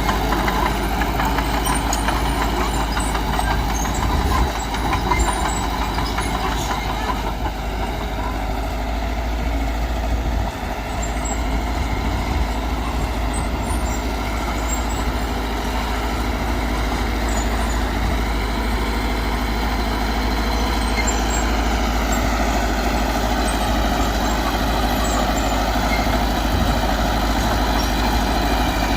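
Diesel engine of heavy earthmoving machinery running steadily, its pitch shifting slightly about twenty seconds in.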